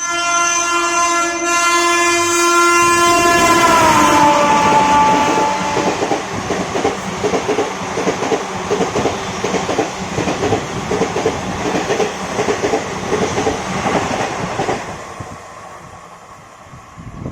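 Express train passing at speed: its horn sounds for about four seconds and drops in pitch as it goes by, then the wheels clatter rapidly over the rail joints before the sound fades away near the end.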